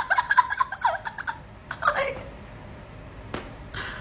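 A cat's rapid warbling call: a quick run of short pitched notes over the first second and a half, then one more falling call about two seconds in.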